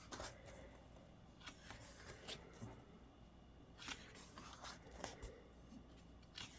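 Faint rustles and soft taps of paper, a handful of times, as the pages of a photo book are handled and turned.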